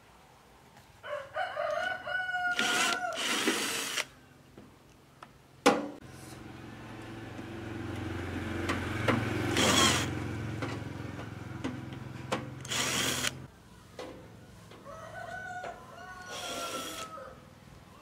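Cordless drill-driver backing rusty screws out of a microwave's metal casing: the motor runs in short bursts and one longer steady run in the middle, with a sharp knock a little before it. A rooster crows twice, about a second in and again near the end.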